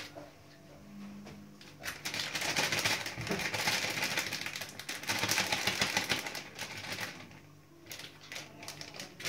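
A sachet of powdered whipped-cream mix crinkling and rustling as it is shaken and tapped out into a bowl of milk, then folded up empty. The crinkling is densest in the middle stretch and fades near the end.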